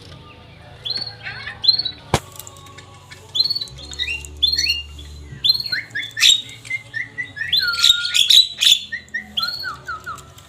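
Javan myna (jalak kebo) calling: a run of short, arched chirps and harsh squawks that grows busier toward the end. A sharp click about two seconds in, and a few more later.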